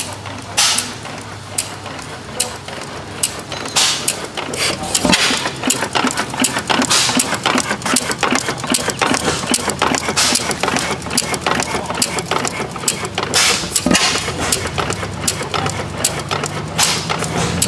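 Antique Olin stationary gas engine running, with a sharp bang about every three seconds and rapid clicking in between, over a steady low hum.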